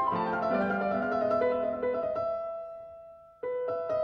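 Background piano music: a run of notes gives way to a held chord that fades away, and a new chord is struck about three and a half seconds in.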